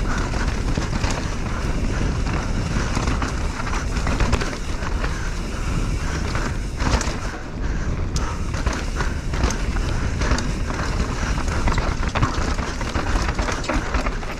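Mountain bike descending a rough dirt trail at speed: wind rumbling on the microphone, tyres on dirt, and a constant clatter of clicks and knocks from the bike over the bumps.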